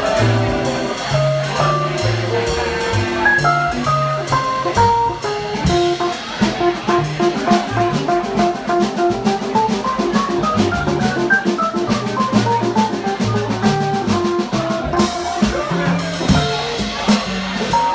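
A small jazz combo playing live: an upright bass walking note by note under a quick single-note lead line, with drums keeping time. The trumpet and trombone sit out.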